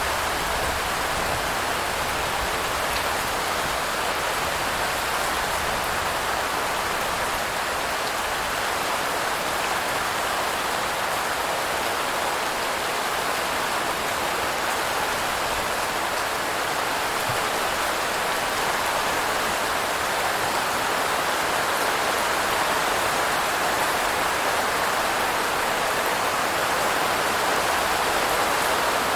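Steady rain falling, an even dense hiss of drops with a few faint single drop ticks.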